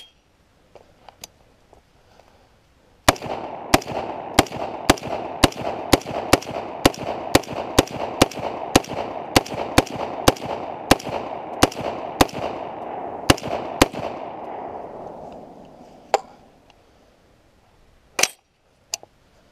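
AR-pattern rifle fitted with a muzzle compensator, fired rapidly in semi-automatic: a string of about twenty shots at roughly two a second with echo ringing between them, followed by two single shots near the end.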